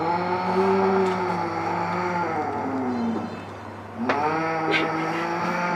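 Pallas's cat giving long, drawn-out threat yowls. One call lasts about three seconds and drops in pitch at the end, and a second begins about four seconds in.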